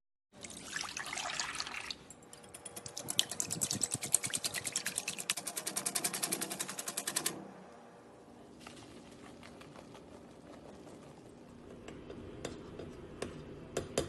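Kitchen preparation sounds: a brief pour, then fast, evenly repeated strokes, several a second, for about five seconds, like whisking in a bowl. Then quieter scattered clicks, and a few clinks of dishes near the end.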